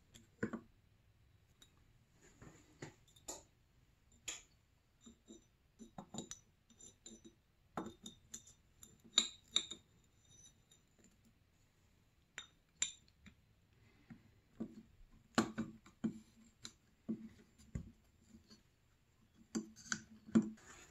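Soft, irregular metallic clicks and clinks of a two-stroke snowmobile piston, its wrist pin, circlips and small hand tools being handled and fitted onto the connecting rod.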